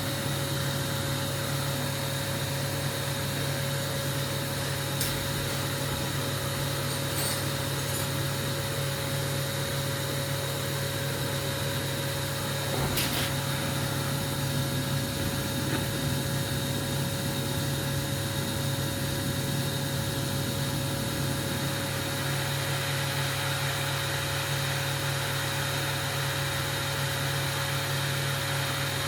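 Steady machine hum over a constant hiss, unchanging throughout, with a few faint clicks and a light knock about 13 seconds in.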